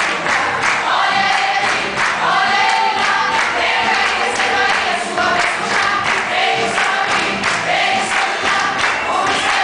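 A group of women singing a gospel hymn together, with sharp regular beats running under the singing.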